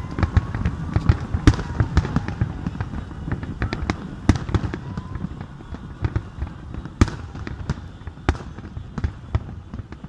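Aerial firework shells bursting in quick succession: a dense string of bangs and crackles over a low rumble, with one sharper bang about seven seconds in.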